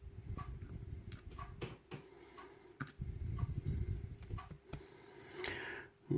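Rummaging and handling noise on a workbench while searching for small lock pins that have dropped out of a disassembled padlock: low rumbling knocks and shuffling in two stretches, then a short rustle near the end. A faint, regular tick sounds about once a second underneath.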